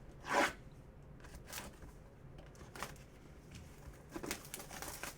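A box of baseball trading cards being opened and handled: a series of short, irregular rustles and scrapes, the loudest about half a second in.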